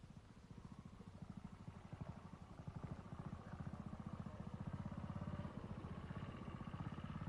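Trials motorcycle engine running at low speed with a rapid, even firing beat, getting louder toward the end.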